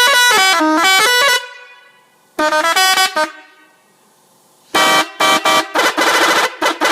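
Telolet bus horn, a multi-note air horn, playing a stepping tune of several pitches. A second short phrase follows after a brief pause, then a quick run of short toots near the end.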